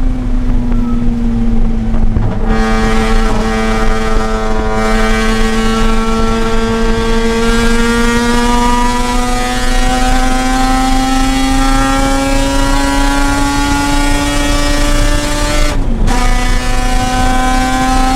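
Mazda RX-8's two-rotor Renesis rotary engine under load on track. Its note climbs slowly and steadily in pitch for a long stretch as the car accelerates, with a short dip about two seconds in and another near the end.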